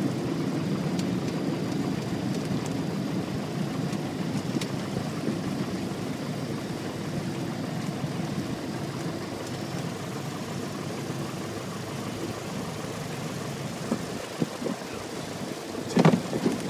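Grumman Tiger's four-cylinder Lycoming piston engine running at low power as the plane taxis, a steady low drone heard inside the cockpit. A brief louder sound cuts in near the end.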